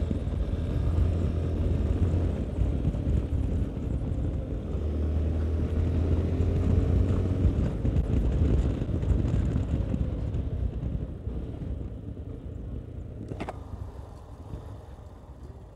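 Yamaha Ténéré 250's single-cylinder engine running as the bike rides along, then dropping away as the bike slows to a stop. A short click comes near the end.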